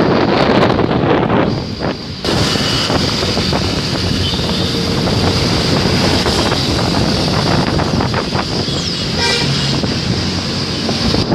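Road traffic passing, with wind noise on the microphone, and a short blast of a bus's multi-tone 'telolet' horn about nine seconds in.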